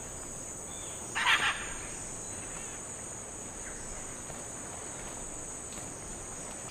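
A steady, high-pitched drone of forest insects, with one harsh, brief bird squawk about a second in, the loudest sound.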